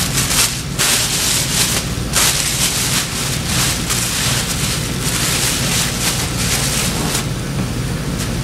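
Thin plastic grocery bag rustling and crinkling in uneven bursts as it is worked over a rag-wrapped frozen bird, over a steady low hum.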